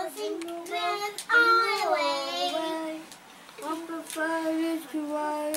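A child singing unaccompanied, in long held notes that waver in pitch, with a short break about three seconds in.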